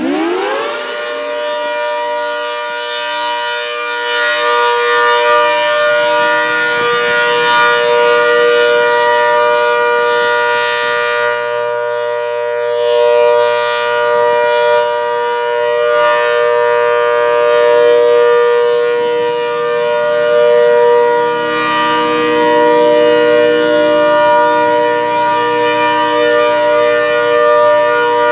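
ACA Hurricane 130 MKII outdoor warning siren sounding the steady Alert signal. It finishes winding up in pitch about half a second in, then holds one steady chord of several tones, its loudness slowly swelling and easing.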